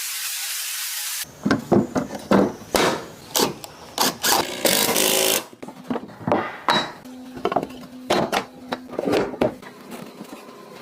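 A steady hiss that cuts off suddenly about a second in, then a run of irregular knocks and scrapes of hand tools working wood.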